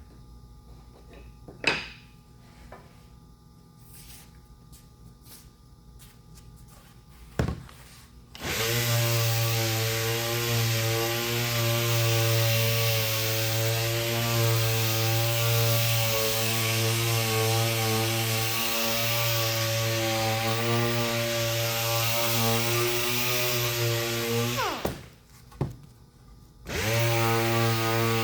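A few light knocks and handling clicks, then an electric sander switched on about eight seconds in. It spins up and runs with a steady hum and hiss, is switched off near the end, winds down with a falling pitch, and is switched on again.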